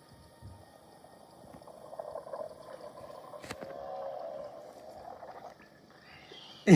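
A man's long, drawn-out belch in a cartoon soundtrack, gurgling and wavering in pitch. Right at the end a sudden loud sound cuts in, falling in pitch.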